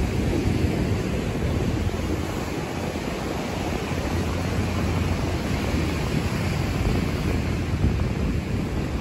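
Wind buffeting the microphone, a steady low rumble, over the continuous wash of ocean surf breaking on shoreline rocks.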